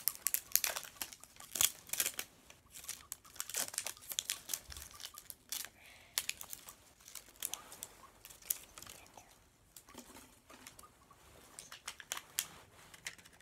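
Plastic wrapping of an L.O.L. Surprise ball being torn open and crumpled by hand. A fast run of crinkles and rips for the first few seconds, then sparser crinkling.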